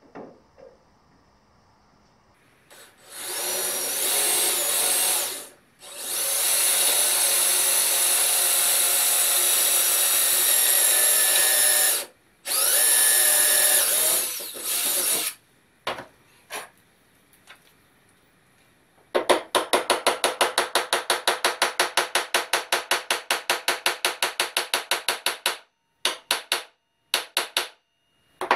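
A handheld electric drill boring holes for roll pins, in three runs of several seconds each. Then a hammer taps rapidly and evenly, about seven light blows a second, driving the pins in, followed by a few single taps near the end.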